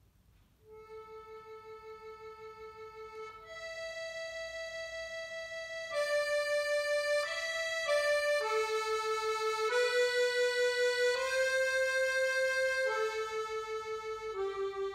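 Goldencup chromatic button accordion playing a slow melody of long held notes, each with a quick regular wavering. It comes in after a short pause, under a second in, and grows louder about six seconds in.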